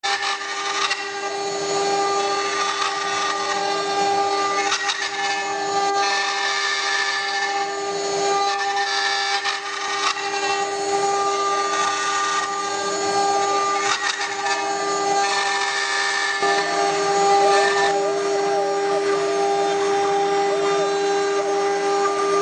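CNC router's 800 W spindle running with a steady whine as its bit carves wood turning on a rotary axis. The cutting noise swells and eases as the bit works through the wood.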